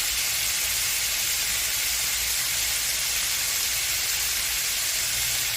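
Bite-sized pork pieces with onion and garlic sizzling in hot oil in a frying pan, a steady hiss that cuts off abruptly at the end.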